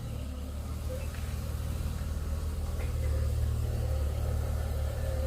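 Audi A4 1.8 four-cylinder petrol engine idling steadily with a low drone while it misfires, a fault the scan tool traces to ignition open circuits on cylinders 1 and 4.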